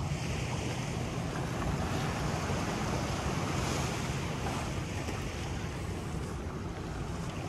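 Small waves washing up on a sandy beach, with a wave swelling louder a few seconds in, over wind rumbling on the microphone.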